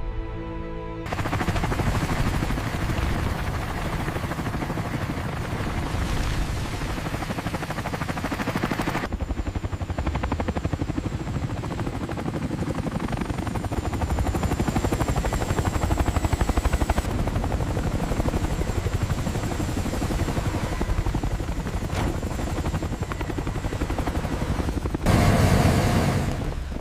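Helicopter rotor chop and rapid bursts of gunfire mixed with dramatic music. The sound changes abruptly about nine seconds in and swells louder near the end.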